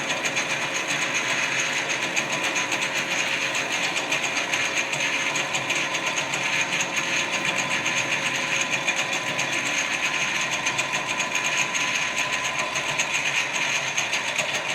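Metal-working lathe running steadily during a hand-fed facing cut across the end of the workpiece: an even, rapid mechanical whir with a steady hum.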